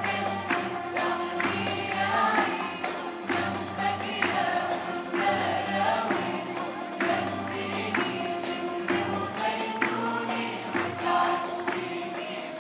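Arabic choir and instrumental ensemble performing live: women's lead voices singing a melody with the choir, over strings and a steady percussion beat.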